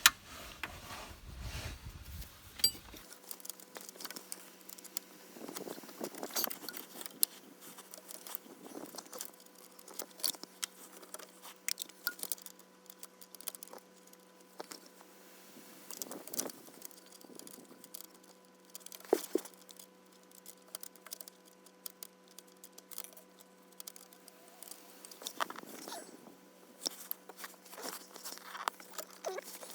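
Scattered small metallic clicks, taps and handling noises at irregular intervals: a spanner working loose the 9 mm hydraulic line fitting on a Citroen XM's Diravi power steering valve.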